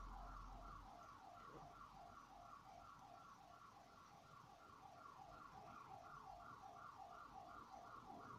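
Faint electronic siren or alarm in the background, two pitches alternating quickly, about three cycles a second, without a break.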